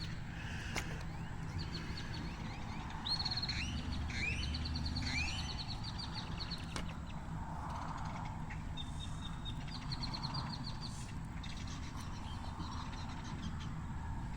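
Small birds singing: rapid high trills repeated several times, with a quick run of short sweeping chirps a few seconds in, over a low steady hum.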